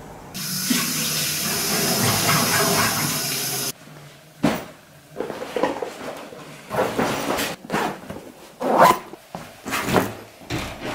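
Water running from a tap, a steady rush that shuts off abruptly about three and a half seconds in. It is followed by a run of short, irregular handling noises.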